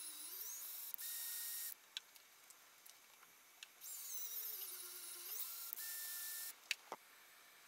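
Power drill boring 2.5 mm pilot holes in a metal carriage plate, ready for an M3 tap. It runs in two short goes, a brief one about a second in and a longer one from about four seconds, with the motor whine rising and falling as the trigger is worked. A few faint clicks come near the end.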